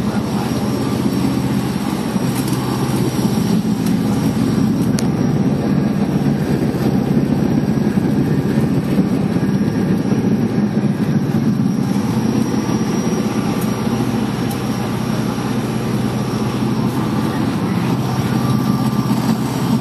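A passenger boat's engines droning steadily, heard inside the passenger cabin, with a deep hum under a constant rush.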